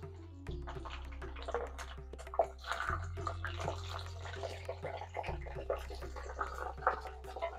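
Okra pieces deep-frying in hot oil in a kadai: a dense sizzle with rapid crackling pops that sets in about half a second in, as the okra goes into the freshly heated oil. Soft background music with a low drone plays underneath.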